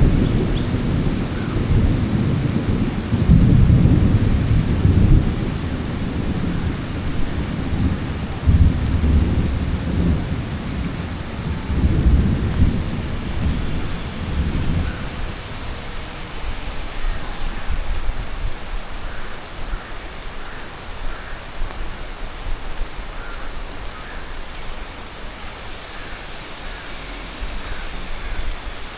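Heavy monsoon rain falling steadily, with a long, uneven rumble of thunder through the first half that fades out about fifteen seconds in.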